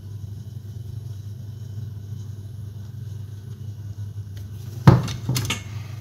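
A steady low hum, with a sharp knock about five seconds in and a lighter one just after, as a copper pipe is pushed home into a plastic push-fit elbow.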